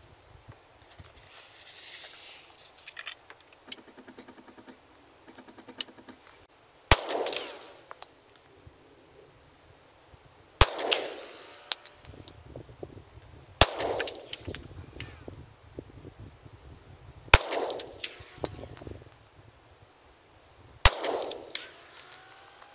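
Five pistol shots from a Glock 20 SF firing 10mm Auto Cor-Bon Hunter 200-grain round-nose rounds over a chronograph. They come about three to four seconds apart, each a sharp report with a short echo trailing off.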